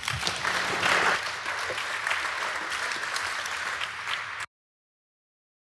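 Audience applauding, loudest about a second in, then cut off suddenly about four and a half seconds in.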